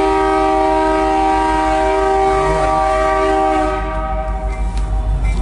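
Canadian National freight locomotive's air horn sounding a long, loud, steady chord, cutting off about two-thirds of the way through. A low rumble runs underneath.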